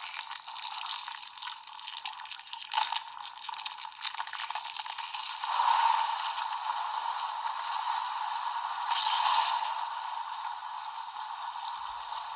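Recorded sound effect played through the small built-in speaker of a CSM Kamen Rider Amazons transformation belt: the hostile Amazon transformation sound, triggered by a short press of the belt's button in its red mode. It sounds thin with no bass, and swells louder about six seconds in and again near nine seconds.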